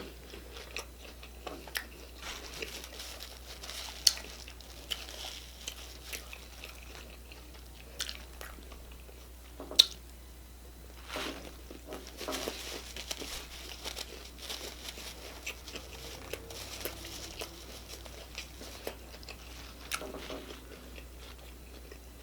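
Close-up biting and chewing of crunchy hard-shell tacos: sharp crunches as the shells crack, loudest about four and ten seconds in, followed by steady chewing.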